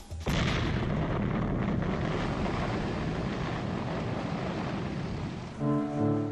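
Quarry rock blast: a sudden explosion about a third of a second in, then a long rumble that slowly fades over about five seconds. Music with held notes comes in near the end.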